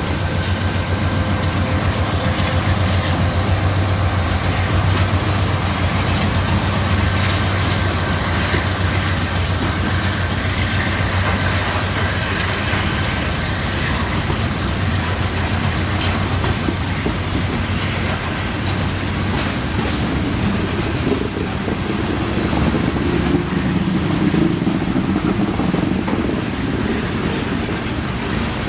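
Norfolk Southern freight train passing close by: diesel locomotives' engine drone in the first half, fading as covered hopper cars roll past with a steady rumble of steel wheels on the rails that grows louder near the end.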